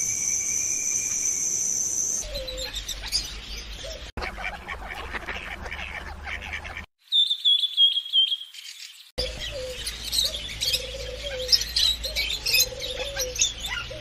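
A string of different bird calls cut one after another: a steady high-pitched trill for about two seconds, then chirping, a short run of high whistled notes near the middle, and dense chirping with a lower repeated warbling call toward the end.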